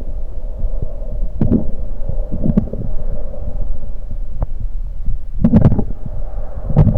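Close-miked human stomach gurgling and bubbling from freshly drunk carbonated soda, over a steady low rumble and faint hum. About four louder gurgles stand out, the biggest a cluster of pops about five and a half seconds in and another just before the end.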